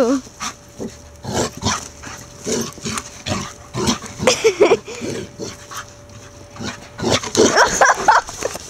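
A small shaggy dog making short, excited vocal sounds while running about in the snow, with rustling noises in between and a cluster of sounds near the end.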